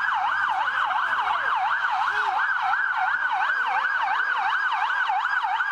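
Police car siren in fast yelp mode, its tone sweeping rapidly up and down about three to four times a second.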